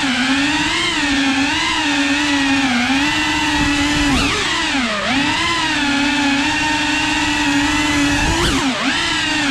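Cinewhoop FPV drone's brushless motors and ducted propellers whining steadily, the pitch wavering with the throttle. The whine sags in pitch about four seconds in and again near the end as the throttle eases off, then climbs back.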